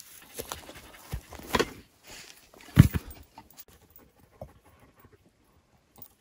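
Dog panting in short breaths, with a louder thump about three seconds in; the second half is much quieter.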